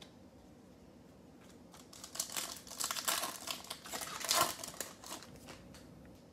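A 2020 Panini Select football card pack's foil wrapper being torn open and crinkled by hand, starting about two seconds in and dying away about five and a half seconds in.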